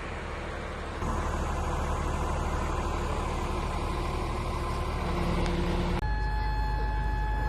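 Crane lifting the boat out of the water: its diesel engine and hydraulics running under load. The engine note rises about a second in, and near the end it shifts again and a steady whine comes in.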